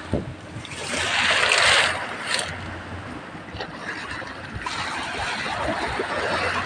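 Shallow sea water splashing and lapping around outrigger fishing boats and at the shore, with one louder rush of splashing about a second in.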